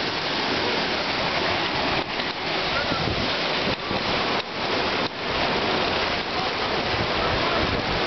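Steady rush of water on a log flume ride: water pouring down the flume chutes and spilling over the edges of the splash pool, with a few brief dips in level.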